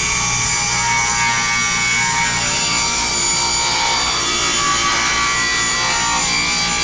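Table saw running and cutting through a wooden 2x2 block, splitting it in half; a steady, continuous sound.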